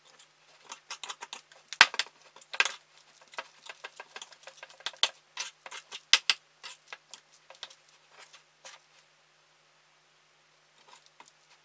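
A mixing utensil working thick, sticky homemade cold porcelain clay dough in a container, giving irregular clicks and short scrapes that stop about nine seconds in.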